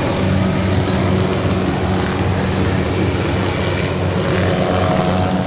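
Helicopter running: a steady, loud low drone from the rotor and engine, with a noisy rush above it.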